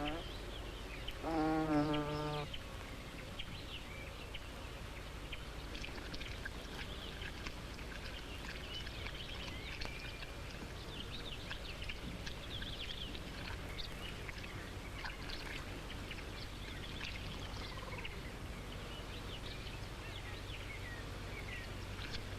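Faint wet trickling and squelching of shallow water and mud, likely lungfish wriggling through a drying puddle. Many short high chirps run behind it, with one brief pitched call about two seconds in.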